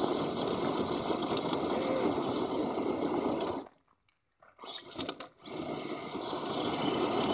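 Electric 1/10-scale RC trail truck crawling over loose gravel: a steady noisy crunch and whir of tyres on stones and drivetrain. It cuts out for about a second near the middle, then comes back with a few clicks.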